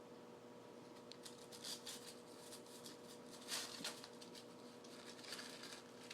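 A kitten pawing at a puzzle box toy with candy wrappers inside: faint, irregular light scratches, taps and rustles, starting about a second in and strongest about halfway through.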